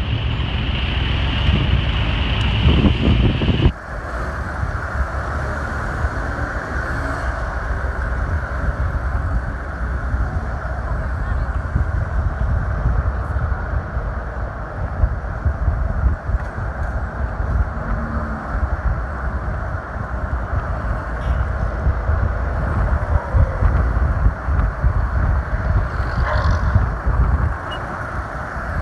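Open early-1950s Chevrolet convertible on the move: steady engine and road rumble with wind buffeting the microphone. The sound changes abruptly about four seconds in, then carries on steadily.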